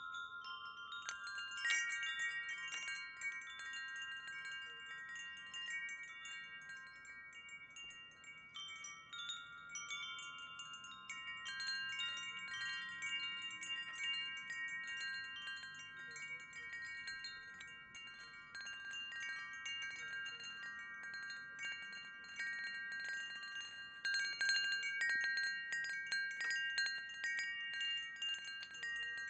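Wind chimes ringing. Several notes are struck at uneven moments and ring on, overlapping one another.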